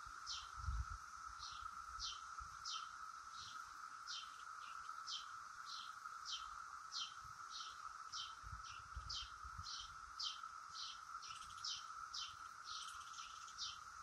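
Brood X periodical cicadas in chorus, a steady high drone. Over it a bird chirps repeatedly, about twice a second. Brief gusts of wind rumble on the microphone.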